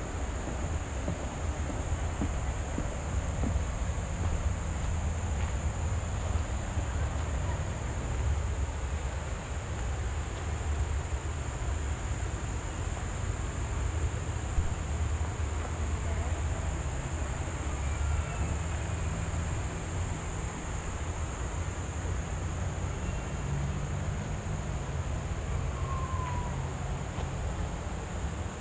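Steady high-pitched insect chorus of crickets or katydids over a constant rushing noise with a low rumble. A couple of faint short chirps come in late.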